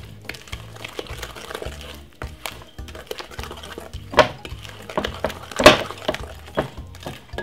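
Background music with a steady bass beat, over a wooden spoon scraping and stirring thick cake batter in a glass mixing bowl. Two sharper knocks of the spoon against the glass come about four and nearly six seconds in, the second the loudest.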